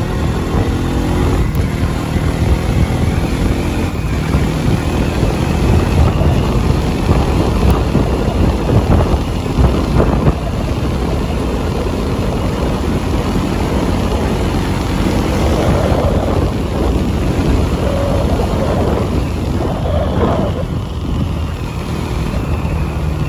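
Bajaj Pulsar NS200's single-cylinder engine pulling under throttle at road speed, heard from the rider's helmet with heavy wind rush over the chin-strap-mounted phone's microphone.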